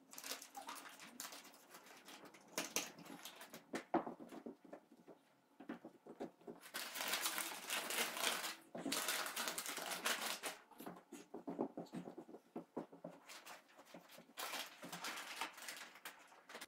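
Crumpled paper rustling and crinkling in irregular bursts as it is pressed and tucked into place around a frame, loudest about halfway through.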